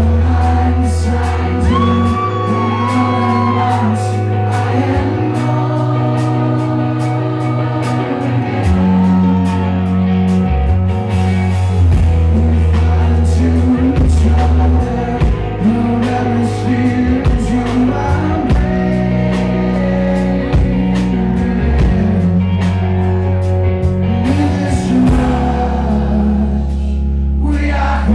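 Live rock band playing: a male lead singer sings over electric guitar, sustained bass notes and drums, recorded from within the crowd in a club.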